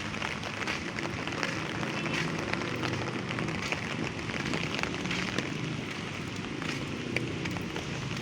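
Light rain falling steadily: a continuous hiss dotted with many small drops ticking on surfaces.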